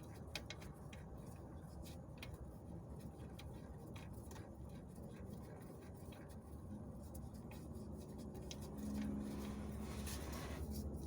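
Faint, irregular clicks and light metallic taps of hand work, as the oil cooler bolt is fitted back in and started on its threads. A low steady hum comes in about two-thirds of the way through and grows louder near the end.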